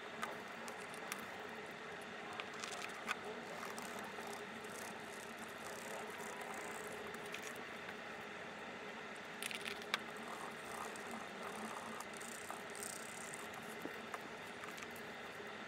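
Wooden stir sticks tapping against plastic cups and pigment jars being opened and set down while coloured powder is mixed into clear epoxy resin. These make a few light clicks and knocks, the clearest about 3 s in and about 10 s in, over a steady background hum.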